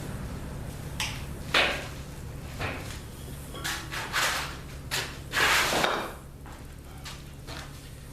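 A metal welding cart being handled and flipped over: a series of short knocks and scrapes, with a longer scrape about five and a half seconds in.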